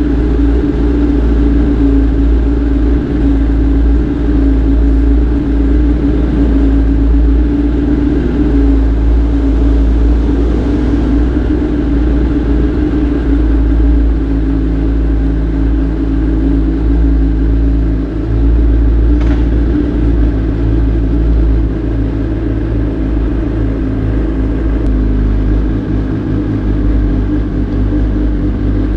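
2020 Kawasaki ZX-10R's inline-four running through an Akrapovic carbon exhaust. It holds a fairly steady pitch with a heavy low rumble and no big revs.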